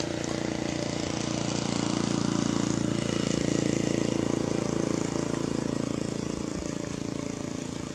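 Engine of a passing motor vehicle running steadily, growing louder to a peak midway and then fading away.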